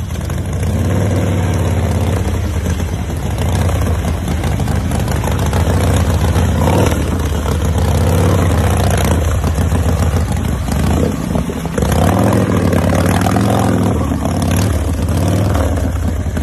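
Heavily customised Harley-Davidson chopper's V-twin engine running and being revved, its pitch rising and falling again and again.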